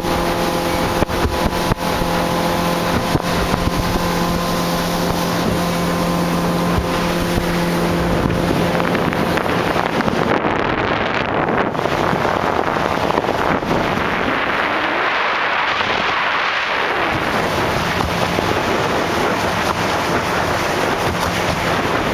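A small motorboat under way: the engine runs with a steady hum over wind buffeting the microphone and water rushing past. About eight seconds in the engine tone fades under the rush of wind and water, which is loudest about fifteen seconds in.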